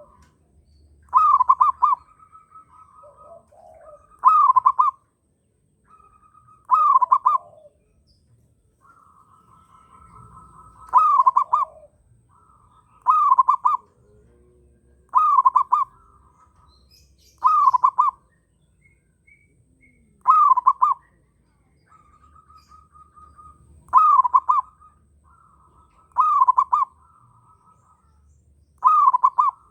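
Zebra dove (perkutut) cooing its song over and over, one loud phrase about every two seconds, from a bird in strong breeding condition. Fainter, steadier calls from other birds fill the gaps between phrases.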